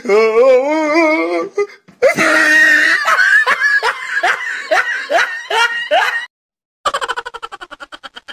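Loud laughter. A wavering held laugh is followed by a run of ha-ha bursts about three a second, then, after a brief break, a fast chattering giggle near the end.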